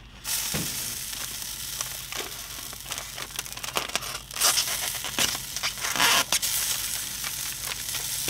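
Butcher paper wrapped around a smoked tri-tip crinkling and tearing as a thermometer probe is pushed through it to test the meat for tenderness, with louder crinkles about four and a half and six seconds in. A steady sizzle from the grill runs underneath.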